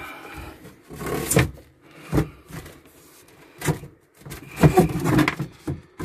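Hands handling and knocking against the wooden cabinet panel and wiring behind an RV's switch panel: a few separate knocks, then a busier run of knocking and scraping near the end.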